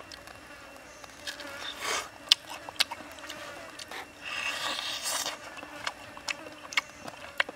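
Biting and chewing grilled chicken: sharp crunchy clicks and a longer noisy bite about four seconds in, over a faint wavering insect buzz.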